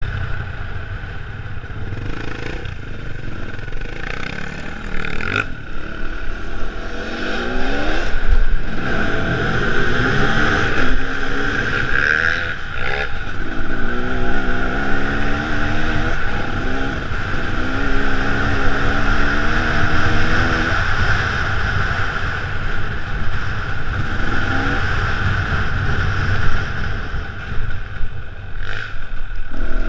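Enduro dirt bike's engine under way on a gravel track, its pitch climbing and dropping back again and again as the rider accelerates and shifts gears.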